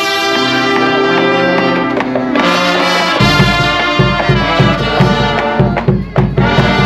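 Brass-led music, trumpets and trombones holding chords, with a steady bass beat coming in about three seconds in.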